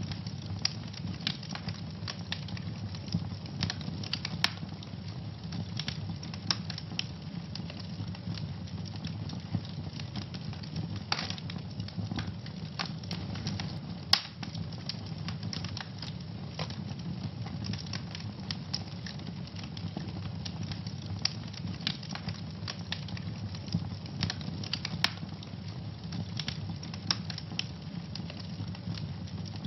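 Wood fire in a fireplace burning with a steady low rumble and frequent irregular crackles, with a few louder pops now and then.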